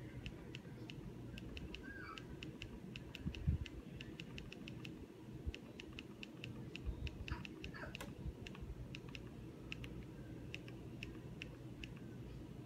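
Rapid, irregular light clicks, several a second, as a TV remote's buttons are pressed over and over to dismiss a recurring error dialog. One soft thump comes about three and a half seconds in.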